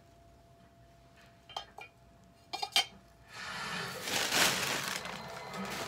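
A few sharp clinks of a ceramic decoration being handled, the loudest nearly three seconds in, then a couple of seconds of a plastic shopping bag rustling.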